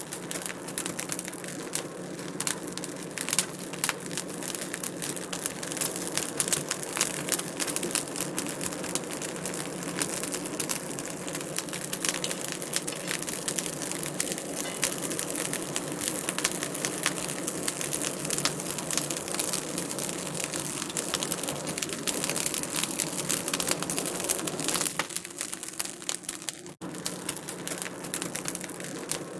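Wood fire crackling in a fireplace: a dense, steady stream of small pops and snaps over a soft hiss, with a momentary break about 27 seconds in.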